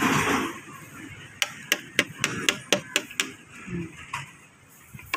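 Quick run of about eight sharp taps on a plastic plate as leftover rice is knocked off it, starting a little over a second in, after a brief rustle.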